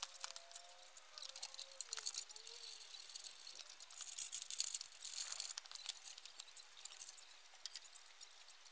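Faint clicks, clinks and light rattles of metal crane parts and cables being handled during assembly of a camera crane, with a hissing swell a little past the middle.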